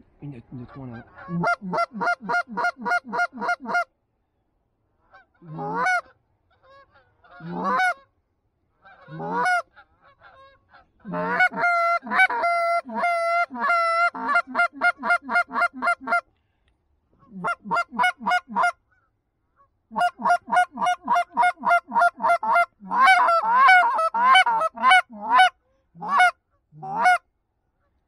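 Canada goose honking and clucking, loud, in fast runs of about four or five calls a second broken by short pauses.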